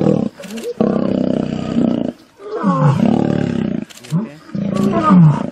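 Male lions roaring and snarling in a fight over a downed rival, in several loud bouts about a second long, the pitch sliding up and down, with short pauses between them.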